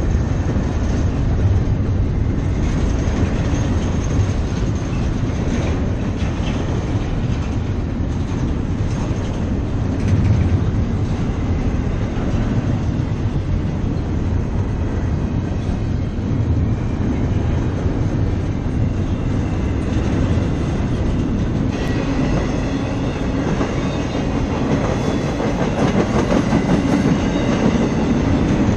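CSX freight train cars rolling past, their wheels clattering steadily over the rail joints with a continuous low rumble. From about two-thirds of the way in, a thin, faint wheel squeal rides over it.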